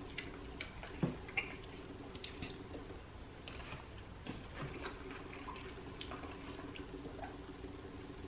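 Close-up eating sounds: chewing a crispy fried chicken wing, with small wet mouth clicks and crackles and two sharper clicks about a second in, over a steady low hum.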